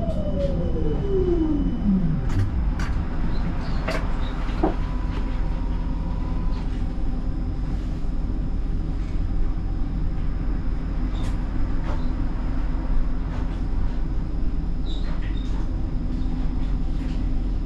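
Siemens Combino tram running, heard from the driver's cab: a steady low rumble of the running gear with scattered clicks and knocks. A whine falls steadily in pitch over the first two seconds or so.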